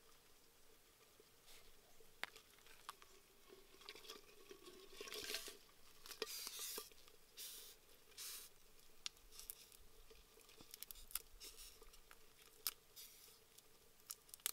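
Faint clicks and rustles of fingers handling and pulling apart small black beetles, with a few short louder rustles about a third of the way in.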